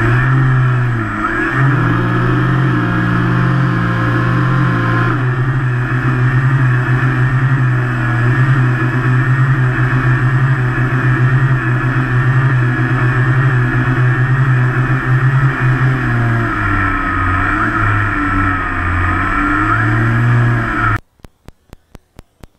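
Twin brushless electric motors and propellers of an RC Catalina PBY model seaplane running in flight, heard from a camera on the airframe: a loud, steady buzzing drone whose pitch steps up and down with throttle changes. It cuts off suddenly near the end, leaving faint regular clicking.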